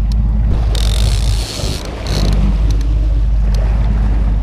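A boat's motor running steadily, a low hum, with wind rushing over the microphone; the level dips briefly about a second and a half in.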